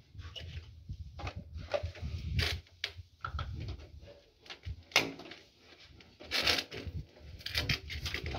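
Handling noises from PVC conduit and hand tools being picked up and moved on a gravel-strewn floor: a run of irregular knocks, clicks and scrapes. The sharpest knock comes about five seconds in.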